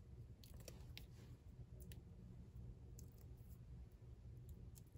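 Faint, scattered clicks and light ticking of paper backings being picked and peeled off small foam adhesive dimensionals, over a quiet room hum.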